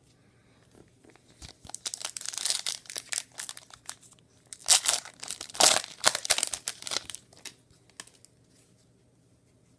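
Plastic wrapper of a trading card pack being torn open and crinkled by hand: a run of crackling tears lasting several seconds, loudest about halfway through, dying away about three-quarters of the way in.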